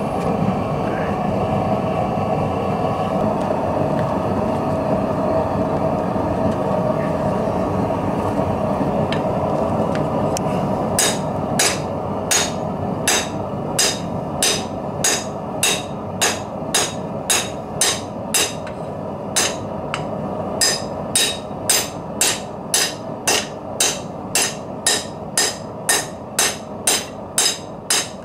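A steady rushing noise for about the first ten seconds, then a hand hammer beating a strip of truck leaf spring on a small anvil: a regular run of sharp metal-on-metal blows, a little under two a second, with a brief pause midway.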